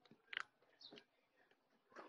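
Faint wet clicks and pops of slime being pressed and poked with fingers inside a small plastic tub, the loudest about a third of a second in.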